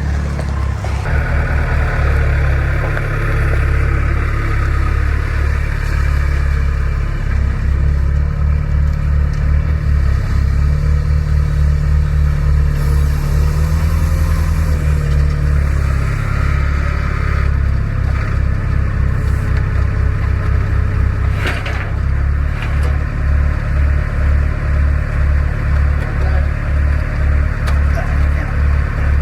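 Diesel engine of a semi truck running, a loud, steady low throb that pulses rhythmically, with a couple of short knocks about two-thirds of the way through.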